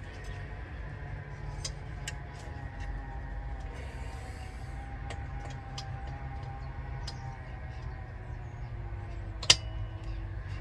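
Light, irregular metal clicks and taps as a replacement glow plug is screwed into a Chinese diesel heater, over a steady low hum; one sharper click about nine and a half seconds in.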